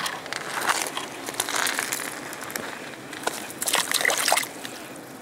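Irregular crunching and crackling of ice chips and slush beside an ice-fishing hole, in clusters of short crunches with brief pauses between.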